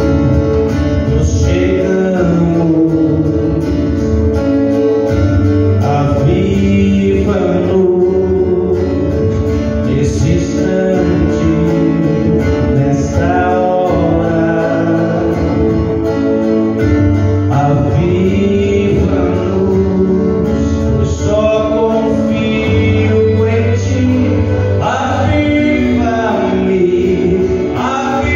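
A man singing a Portuguese-language worship song into a microphone, amplified through the room's sound system, over guitar accompaniment.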